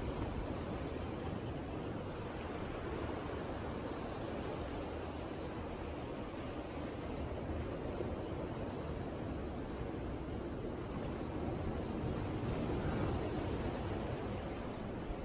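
Steady outdoor rumble and hiss with no distinct source standing out, and a few faint, brief high chirps about ten seconds in and near the end.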